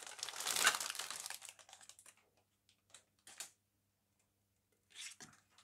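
A thin clear plastic bag crinkling as plastic model-kit sprues are handled in it. The crinkling fades out about a second and a half in, and a few light clicks of the plastic sprues follow.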